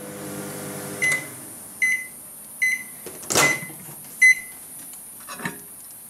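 Microwave oven running with a steady low hum that stops about a second in as the cooking cycle ends, followed by five short high beeps at even intervals signalling that it has finished. A clunk midway and a smaller click near the end come as the oven door is opened.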